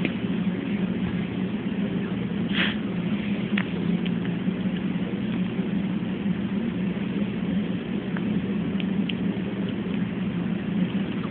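Newborn baby hiccuping: a few small, short sounds, the clearest about a quarter of the way in, over a steady low hum of room noise.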